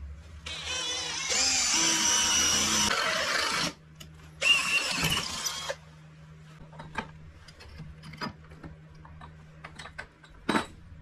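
A handheld power tool runs with a whine for about three seconds, stops, then runs again for just over a second. After that come scattered light taps and clicks, and one louder knock near the end.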